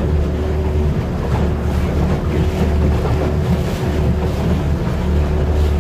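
Motorboat under way: a steady engine drone mixed with water rushing past and wind on the microphone.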